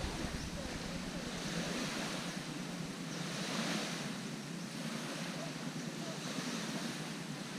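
Small waves washing onto a sandy beach: a steady hiss of surf that swells and eases every second or two, most strongly about three and a half seconds in.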